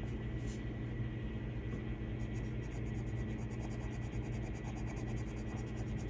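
Colored pencil scratching on paper in quick, rapid strokes, over a steady low hum.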